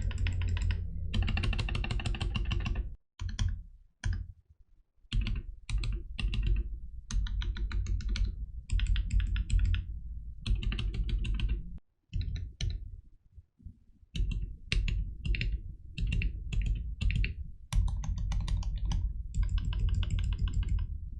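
Tecware B68 mechanical keyboard with lubed, filmed Gateron Black linear switches and PBT keycaps, typed on its modifier keys in runs of rapid keystrokes broken by short pauses and a few single presses.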